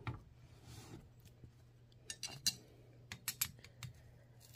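Spanner wrench clicking and clinking on the threaded collars of a Raceland coilover as the two lock collars are tightened against each other to hold the spring preload. Faint, scattered light metal clicks, several close together past the middle.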